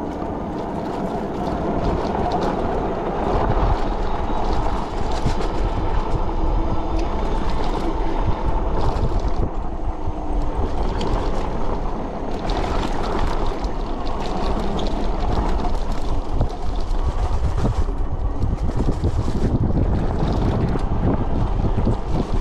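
Wind buffeting the microphone on a moving electric bike, over a steady low rumble with frequent small knocks and rattles from riding over a rough trail.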